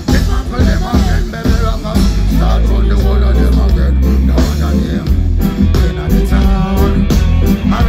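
Live reggae band playing, with a heavy bass line and a steady drum beat.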